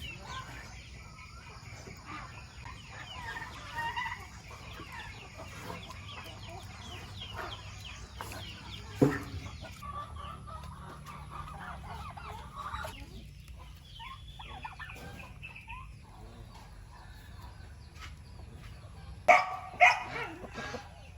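Chickens clucking, with a single sharp knock about nine seconds in. A dog starts barking, loud and repeated, near the end.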